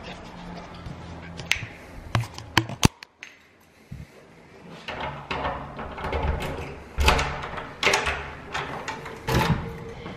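Clicks, knocks and rattles of a wooden hotel room door's lever handle and lock as it is unlocked and pushed open. A few sharp clicks come in the first three seconds, and the louder knocks and rustles follow in the second half.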